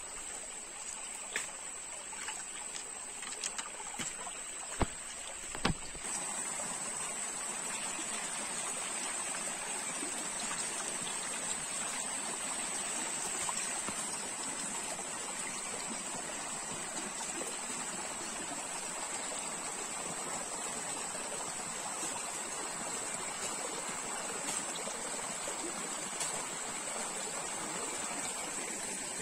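Shallow rocky stream running over stones in a steady rush of water, with a few sharp knocks in the first several seconds. A thin, steady high-pitched whine runs above the water throughout.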